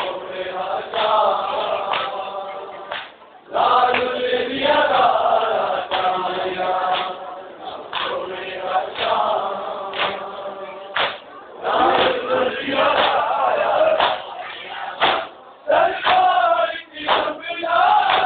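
A group of men chanting a noha, a Shia mourning lament, in chorus. Sharp slaps of hands on bare chests (matam) keep the beat about once a second.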